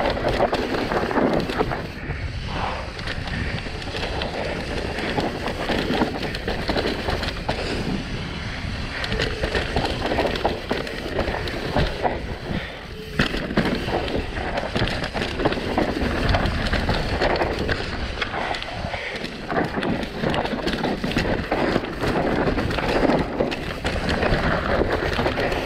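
Mountain bike running fast down a dirt trail: tyres rolling over dirt and rock with constant rattling and clatter, and wind rushing on the microphone.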